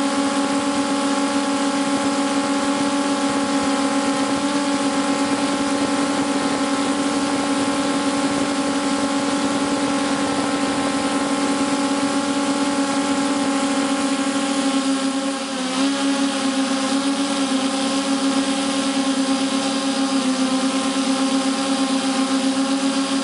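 Electric motors and propellers of a radio-controlled camera aircraft, heard from the camera on board: a steady buzzing hum made of several tones. About fifteen seconds in it dips briefly and the pitch shifts, then it runs on with a slight pulsing.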